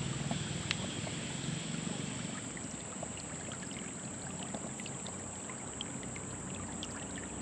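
Shallow creek water running and trickling over rocks, with a steady high-pitched insect drone over it and scattered small clicks.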